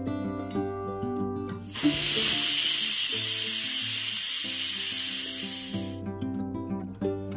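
Pressure cooker's weighted whistle valve venting steam: a loud steady hiss that starts about two seconds in and cuts off about four seconds later. Plucked-string background music plays throughout.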